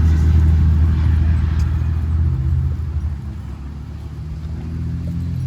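Wind buffeting the microphone outdoors, a loud low rumble. It eases off in the middle and then picks up again.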